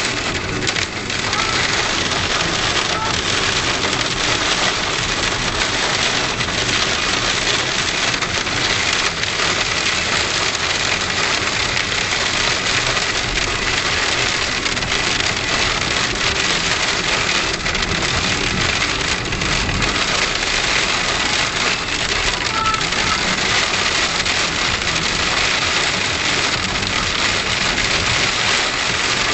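Hail falling and striking a surface: a dense, steady clatter of countless small impacts.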